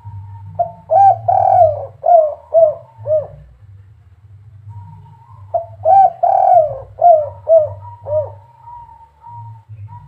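Spotted dove (derkuku) cooing twice, about five seconds apart. Each phrase is a couple of opening coos and a longer rolling coo, ending in three short 'kuk' notes: the 'kuk 3' call pattern.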